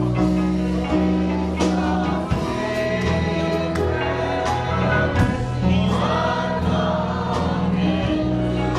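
Gospel choir singing over a worship band, with sustained bass notes and regular drum or cymbal hits.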